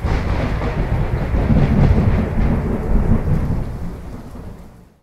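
Thunderstorm sound effect: deep rolling thunder over steady rain, swelling to a peak about two seconds in and then fading away.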